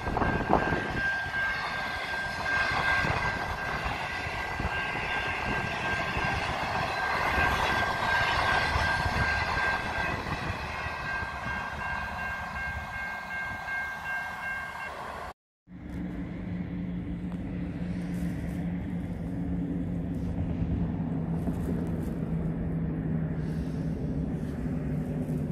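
A long passenger train's stainless-steel carriages rolling past: a steady rumble of wheels on rail, with several steady high-pitched tones over it. It cuts off abruptly about fifteen seconds in, and a quieter low steady hum follows.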